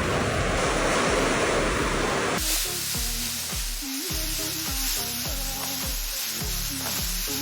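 Heavy hail and rain pelting down in a dense hiss, which cuts off abruptly about two and a half seconds in, leaving background music with a steady bass beat.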